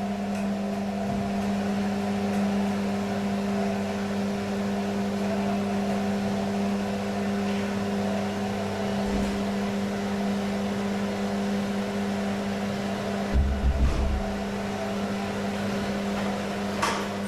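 Beko washing machine's drum motor running at a steady speed, giving a steady hum with a clear tone. A short burst of low thumps comes about 13 seconds in.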